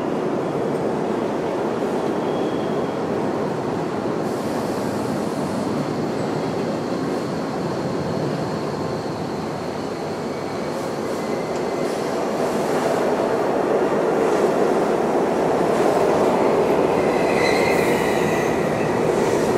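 Subway train running on the track: a steady rumble that grows louder from about twelve seconds in, with faint high wheel squeals near the end.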